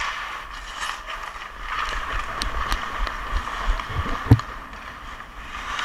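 Hockey skates scraping and gliding on ice, with a few sharp clicks of a stick on the ice and one loud knock about four seconds in.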